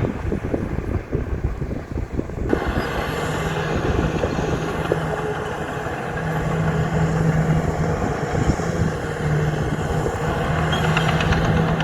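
Diesel engine of heavy earthmoving equipment running. It starts as a low rumble, then changes abruptly about two and a half seconds in to a fuller sound with a steady engine note and added rattle and noise.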